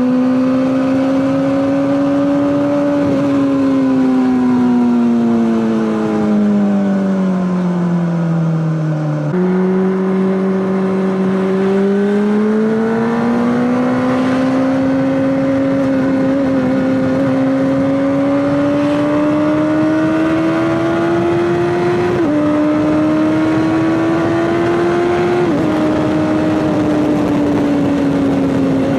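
Honda CBR600RR inline-four engine through an Akrapovic exhaust, running under way. The note sinks as the bike slows, jumps up at a downshift about nine seconds in, then climbs steadily, with two sudden drops at upshifts near the end.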